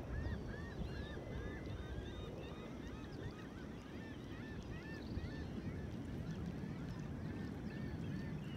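A flock of birds calling continuously, many short, overlapping chattering calls, over a steady low rumble.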